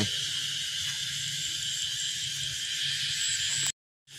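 Steady chorus of insects chirring, with a faint high pulsing trill over it. The sound cuts out completely for about half a second near the end.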